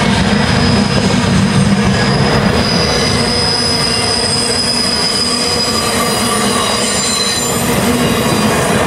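Freight boxcars rolling past at close range: a steady heavy rumble of steel wheels on rail. A high, steady wheel squeal sets in a couple of seconds in and holds for several seconds.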